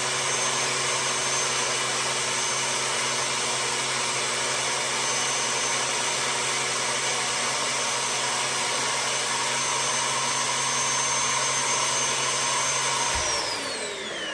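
Belt sander, turned upside down, running steadily with a high whine and the rasp of the belt while small wooden pieces are sanded. About 13 seconds in it is switched off, and the whine falls in pitch as the belt spins down.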